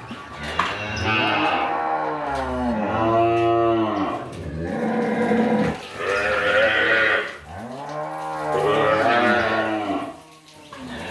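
A calf bawling loudly in three long calls, each rising and then falling in pitch, while it is held and handled by people in a pen for deworming.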